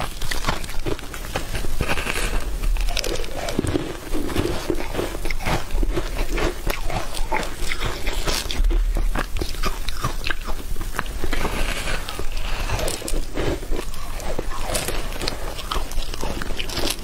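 Close-miked eating: biting into and chewing a thick round cake coated in green powder, a dense run of crisp crunches, crackles and mouth sounds.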